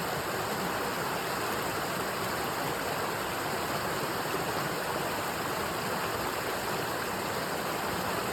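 Stream water flowing between rocks, a steady, even rush.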